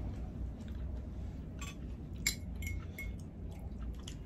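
A fork and chopsticks clinking against small bowls as noodles are picked up: several light clinks, a few with a brief ring, starting about one and a half seconds in.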